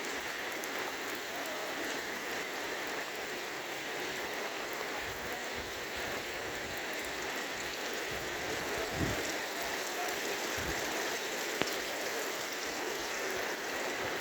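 Steady rain falling, an even hiss of drops on surfaces, with a brief low thump about nine seconds in.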